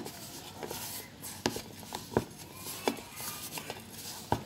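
Hands kneading a flour, salt and water dough in a stainless steel bowl: several irregular knocks and taps of hands and dough against the metal bowl.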